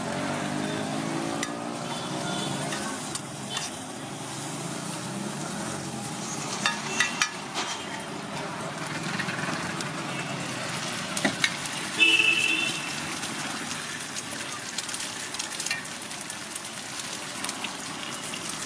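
Food sizzling steadily on a hot street-food griddle, with a few sharp clicks and taps against the cooking surface, the loudest about twelve seconds in.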